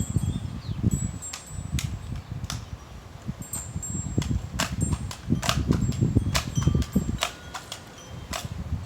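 Wind buffeting the microphone in low gusts, with a wind chime ringing in scattered, irregular strikes.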